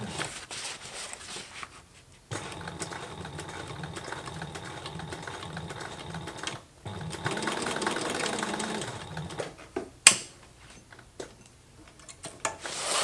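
Thompson PWZ500 industrial sewing machine stitching through heavy canvas in several runs with a steady stitch rhythm, stopping briefly between runs. The stitching dies away near the end with a few clicks, one of them sharp.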